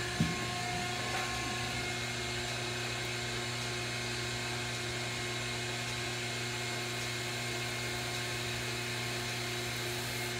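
A steady machine hum with several fixed tones, unchanging throughout, and a single knock just after the start.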